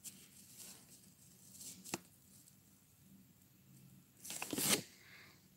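Quiet handling noise from a hand moving a plastic toy horse figure close to the microphone: a small sharp click about two seconds in, then a louder, brief rustle a little past four seconds.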